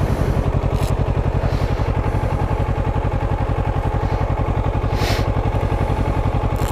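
Kawasaki Ninja 650's parallel-twin engine idling steadily at a standstill, an even, fast low pulsing.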